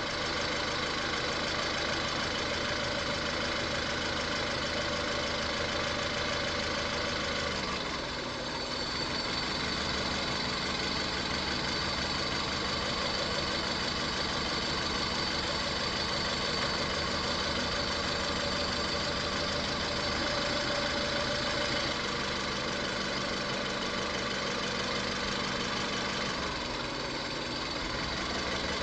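Car engine with a cylinder 3 misfire idling steadily; its note changes about 8 seconds in and changes back about 22 seconds in, as an injector connector is unplugged and reconnected in a cylinder power balance test.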